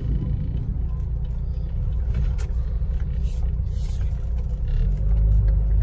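Peugeot 406 driving slowly, heard from inside the cabin: a steady low rumble of engine and road noise that grows louder about five seconds in.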